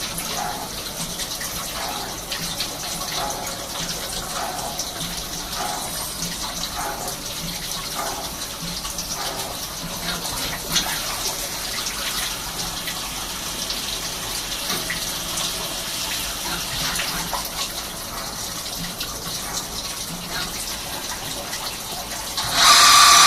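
Swiss-type CNC lathe running, with a steady hiss like coolant spraying and faint blips repeating a little under a second apart. Near the end a much louder machining whine with a steady high pitch starts suddenly.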